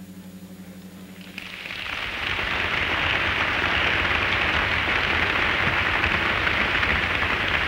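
A large audience applauding, the clapping swelling in about a second and a half in and holding strong; before it, a low steady tone.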